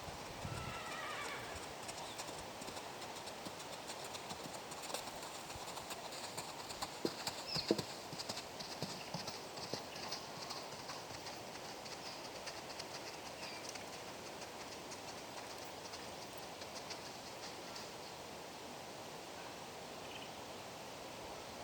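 Hoofbeats of a ridden horse clip-clopping, thickest in the middle stretch, over a steady rush of wind noise.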